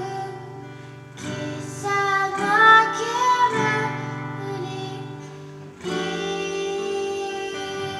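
Live song: guitar chords strummed and left to ring, with a woman singing a short line in the middle.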